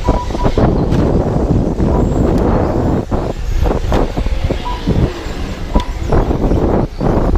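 Wind buffeting the microphone, a loud, uneven rumble that swells and drops out in gusts.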